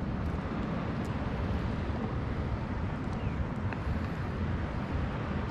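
Steady wind buffeting the microphone: an uneven low rumbling noise, with a few faint clicks.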